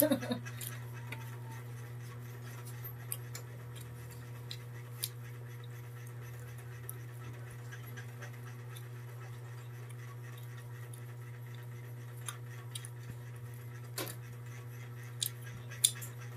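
Light clinks and taps of dishes and utensils at a meal, scattered and sparse, with a few sharper ones near the end, over a steady low hum.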